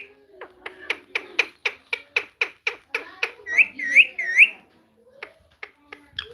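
Pet parrot making a quick run of about a dozen sharp clicking calls, about four a second, then three swooping whistles, with a few scattered clicks near the end.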